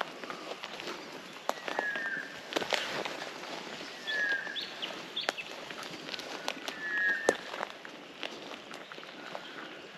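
Footsteps through bush with sharp snaps and crackles, while a bird repeats a short falling call about every two to three seconds.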